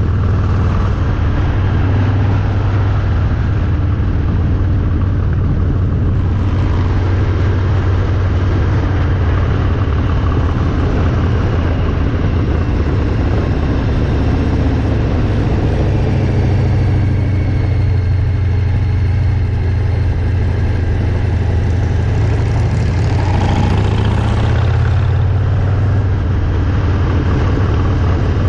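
Harley-Davidson Milwaukee-Eight V-twin motorcycle engine running on the road, a deep, steady drone with little change in loudness.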